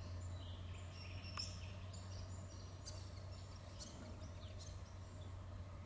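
Australian bush ambience: several small birds giving short, high chirps and twitters over a steady low hum.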